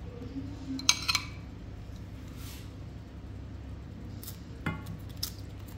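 A metal spoon clinking against the pan and sauce bowl as sauce is spooned over halved chickens: two sharp clinks about a second in, then a few lighter taps near the end, over a steady low hum.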